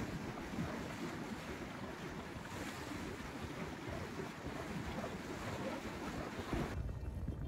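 Sea water rushing and splashing along the hull of a moving sailing boat, with wind buffeting the microphone. Near the end the hiss drops away and a low wind rumble takes over.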